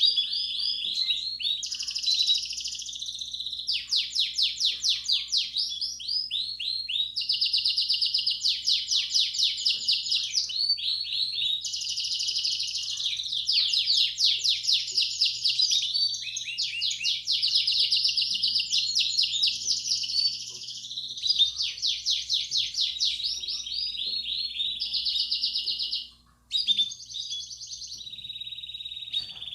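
Belgian canary singing a long 'campainha' (bell) style song: rapid trills and rolls, phrase after phrase, with a short break near the end.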